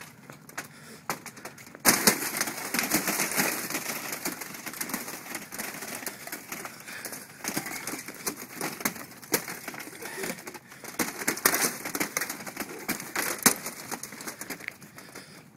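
Footsteps on thin ice, crunching and cracking under the walker's weight. A dense run of sharp crackles and snaps starts about two seconds in.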